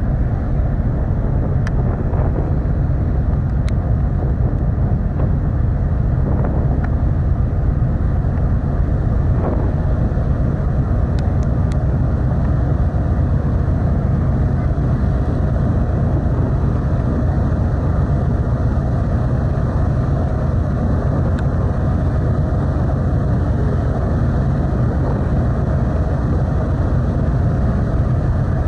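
Car ferry Kuniga running under way: a steady low engine rumble, with wind buffeting the microphone and water rushing past.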